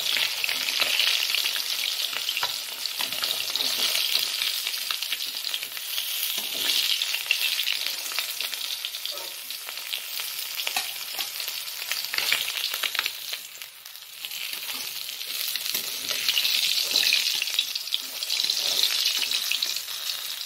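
Katla fish steaks sizzling and crackling in hot mustard oil in a kadai, with a steel spatula clicking against the pan as the fried pieces are lifted out. The sizzle swells and fades, dipping about two-thirds of the way through.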